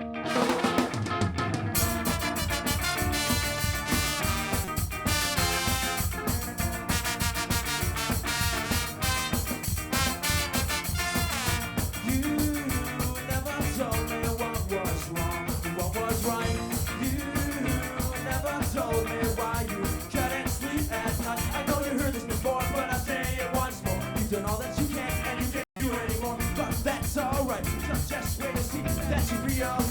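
A live ska band playing a fast, upbeat song with drums and guitar on a steady beat; the full band comes in about two seconds in. Near the end the sound cuts out for a split second.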